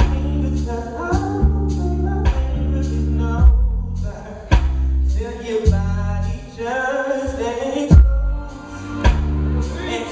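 A male singer sings an R&B/soul song over music with a heavy bass line and regular drum hits.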